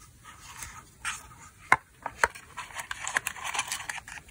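Paper and cardboard packaging being handled: a paper pen sleeve sliding and scraping out of a cardboard box, with rustling and a few light taps.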